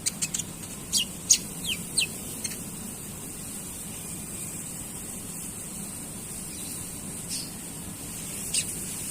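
Konin songbird chattering in short, sharp, high chirps, several of them falling in pitch. A quick cluster comes in the first couple of seconds, then two more near the end, over a steady low hum and hiss.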